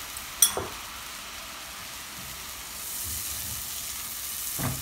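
Ground yogurt sizzling and bubbling in hot ghee and oil with whole spices in a pot, with a sharp knock about half a second in and a spoon stirring it near the end.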